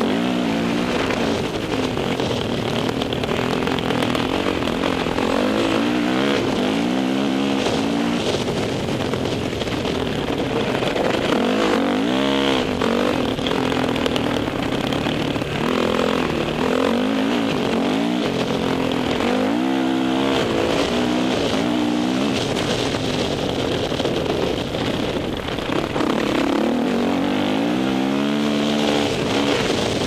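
Dirt bike engine running under way on a gravel trail, its note climbing and dropping again and again as the throttle is worked and gears change. A steady rush of wind and tyre noise runs under it.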